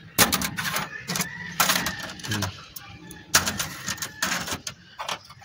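Metallic clicking and clinking of an old Suzuki Multicab clutch disc being handled and its hub twisted by hand, as a series of sharp, uneven knocks. The disc is the broken one just taken out.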